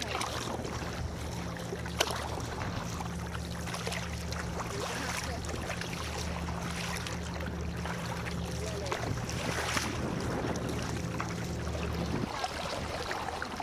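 Sea kayak paddle strokes splashing and water lapping against the hull, with one sharp knock about two seconds in. A low steady hum runs underneath and cuts off near the end.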